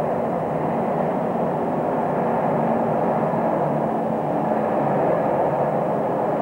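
Train running through a tunnel: a steady rumble of wheels on rail with a low, even hum underneath.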